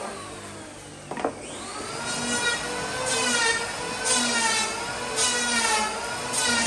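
Electric power tool running and cutting into wood in repeated passes, its motor whine dipping and recovering under load, with a sharp knock about a second in.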